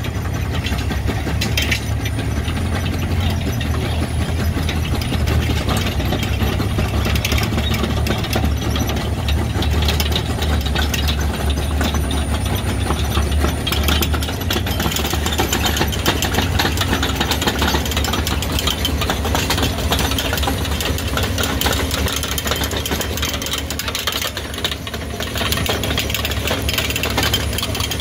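Vogel self-propelled squash harvester at work: its engine runs steadily with a deep drone, over a continuous rattling clatter from its chain conveyors and pickup reel.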